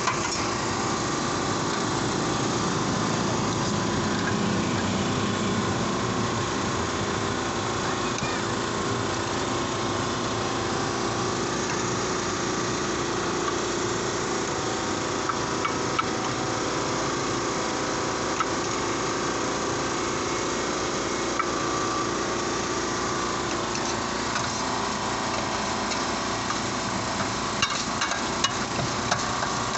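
Steady mechanical hum and rush from the stall's equipment. Near the end come sharp metallic clicks of a knife striking the steel tray as chicken is cut from the shawarma rotisserie.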